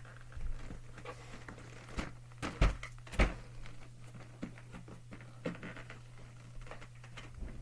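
Handling noises from a slime kit's packaging being opened: scattered knocks and light rustling, the two loudest knocks a little over half a second apart about two and a half seconds in, over a steady low hum.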